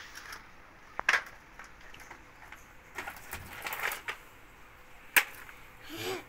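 Plastic toy racing truck pushed by hand over gritty dirt on a concrete floor: its wheels scrape and rattle over the grit, with sharp plastic clicks as it knocks down, one about a second in and a louder one near the end.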